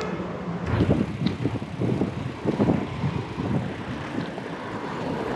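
Wind buffeting an action camera's microphone while cycling along a street: an uneven low rumble that comes in gusts.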